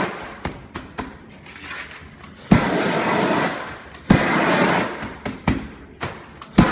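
Propane shrink-wrap heat gun fired in short blasts: twice a sharp pop followed by about a second of rushing flame noise, with a third blast starting near the end and light clicks between them.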